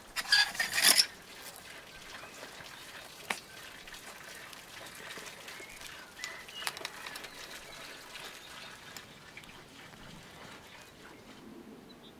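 Raw lamb pieces being pressed down onto a vertical steel shawarma skewer by hand, a short loud burst of handling noise in the first second and a single click a few seconds later, over outdoor ambience with faint birdsong.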